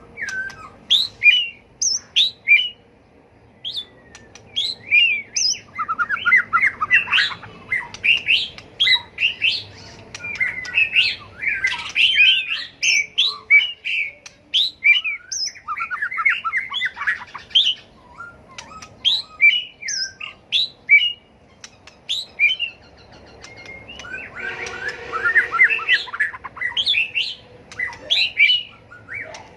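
White-rumped shama singing a fast, varied song of whistled notes and chattering phrases, broken by short pauses.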